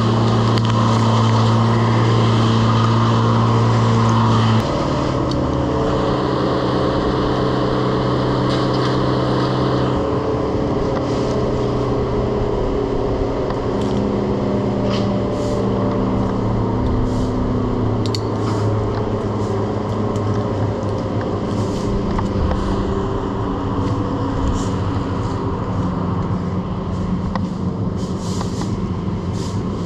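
Engine running steadily at a constant speed. Its sound changes in steps about 4.5 and 10 seconds in, and scattered light clicks sound over it in the second half.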